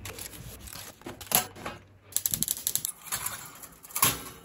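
Handling noise: aluminium foil crinkling and a flat metal tin clicking and knocking as it is picked up and set on a wire oven rack. The sound comes as irregular small clicks, with a rapid crackle in the middle and a knock near the end.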